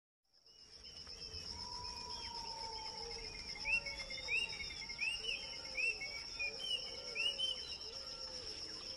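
Countryside ambience fading in over the first second: a steady, high, continuous insect trill, with repeated short rising bird chirps and lower arching calls over it.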